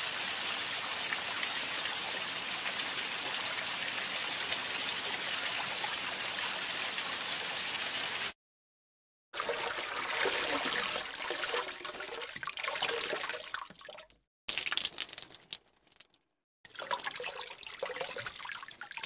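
Water sound effects: a steady rush of running water for about eight seconds, a sudden cut to silence, then separate takes of water pouring and trickling unevenly, each ending in an abrupt cut.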